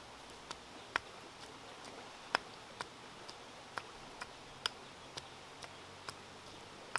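Wooden pestle pounding red chilies in a stone mortar: sharp knocks about twice a second, some much louder than others.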